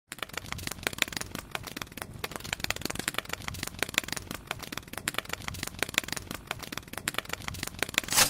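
Dense, irregular crackling made of many small clicks, kept up without a break.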